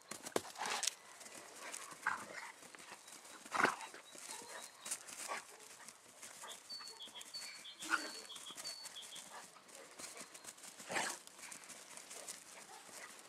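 Puppies and an adult dog playing rough on grass: scattered scuffles and short dog sounds, loudest a little after the start, near a third of the way in and toward the end.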